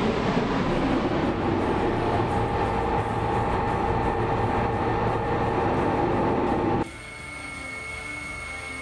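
Fighter jet engine noise, loud and steady with a high whine, cutting off suddenly about seven seconds in to leave quieter background music.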